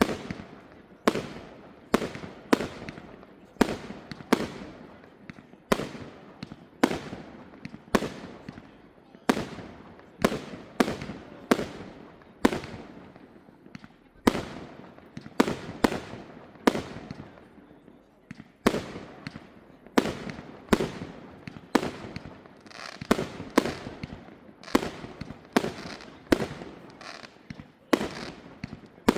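Fireworks display: shells bursting in quick succession, sharp bangs about one to two a second, each trailing off in a rolling echo.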